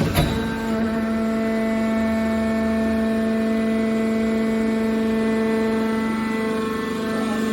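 Hydraulic scrap metal baler running, its hydraulic pump giving a steady, even whining hum, with a short knock right at the start.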